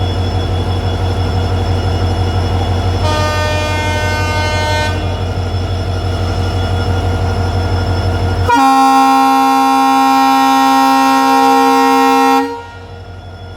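EMD WDP4D diesel locomotive's air horn blowing over the steady rumble of its running engine: a shorter, higher blast about three seconds in, then a long, loud blast of about four seconds that cuts off near the end. It is the horn signal that alerts the guard after an alarm chain pull.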